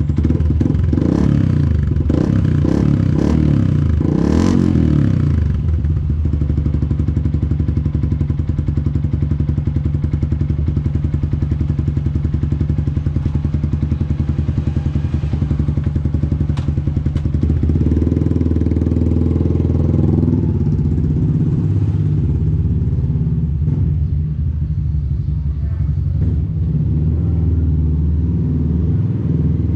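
Yamaha Sniper 150's single-cylinder four-stroke engine running through an UMA Tru Pressure aftermarket exhaust: idling steadily, with several quick throttle blips in the first few seconds and a longer rev about two-thirds of the way through.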